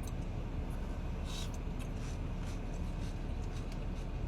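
Steady low rumble of background noise, with a few faint clicks and a short soft rustle about a second and a half in.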